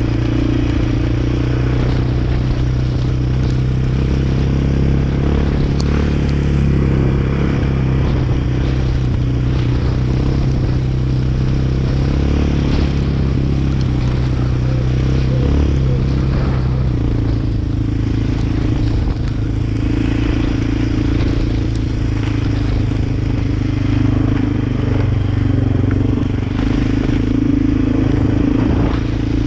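Quad bike (ATV) engine running steadily while being ridden, its note shifting a little past halfway as the speed changes.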